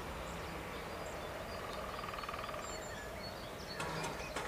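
Electric drive of an AŽD 97 level-crossing barrier lifting the boom. A faint low hum is heard near the start and again about four seconds in, with a short clatter as the arm reaches upright. Steady outdoor background noise and scattered bird chirps run underneath.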